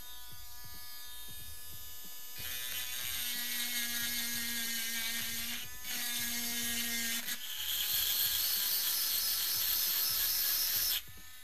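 Topshak TS-MG1 mini cordless rotary tool running with a small grinding bit against a metal rod: a steady high motor whine with a harsh grinding hiss over it from about two seconds in. The hiss breaks off briefly near the middle and comes back louder, then cuts off suddenly near the end while the motor keeps whining faintly.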